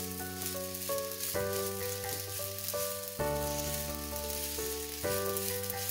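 Background music with chords changing about every second, over a steady sizzle from rice-flour puwa crumbles cooking in a nonstick pan as they are stirred with a silicone spatula.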